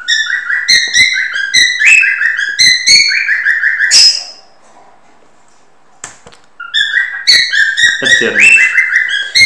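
Stylus squeaking across a tablet screen during handwriting: runs of short, high, slightly falling squeaks, each starting with a light tap, in two spells with a pause of about two seconds in the middle.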